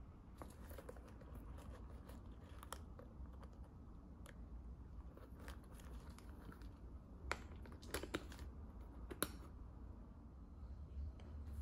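Handling sounds of a small quilted leather flap bag with a metal chain strap and turn-lock: scattered light clicks and taps, with a few sharper clicks about seven to nine seconds in.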